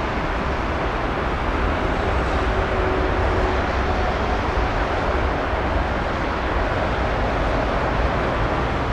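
Boeing 747-8's four GE GEnx-2B turbofan engines at takeoff thrust as the jet climbs away after lift-off: a steady, deep jet rumble.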